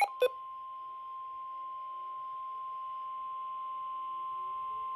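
NOAA Weather Radio 1050 Hz warning alert tone: a single steady pure tone held unbroken after a brief click, the signal that a warning message follows.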